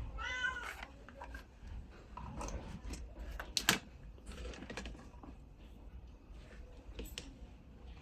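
Scattered clicks and knocks of a power-supply adapter and its plug being handled and connected, the sharpest about three and a half seconds in, over a steady low hum.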